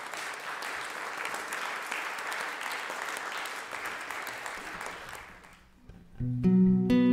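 Audience applauding, dying away about five seconds in; near the end an acoustic guitar starts playing sustained chords.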